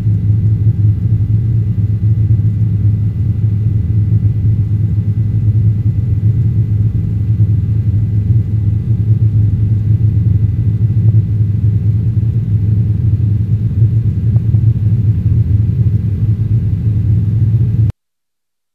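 Helicopter in flight: the steady low rumble of its rotor and engine heard in the cabin, cutting off suddenly near the end.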